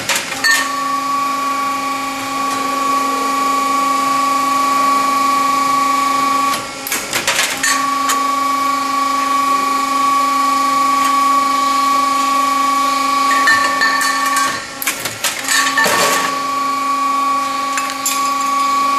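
Machine for producing reinforcing metal profiles running with a steady, multi-tone motor whine. The whine stops twice, about seven and fifteen seconds in, for a second or so of clattering and clicking, then resumes.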